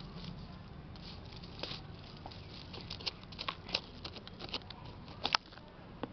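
A thin metal tool scraping and poking through dry potting soil around ginger roots in a small pot, loosening it to dig out the ginger: an irregular run of small gritty scrapes and clicks, the sharpest one about five seconds in.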